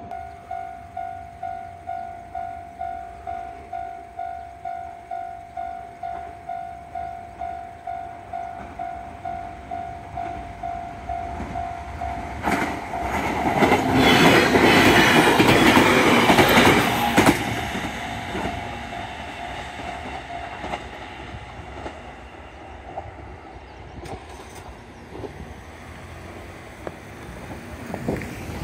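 Japanese level-crossing warning bell ringing about twice a second as an electric commuter train approaches. The train then passes the crossing loudly for about five seconds. The bell rings on faintly and stops a few seconds after the train has gone by.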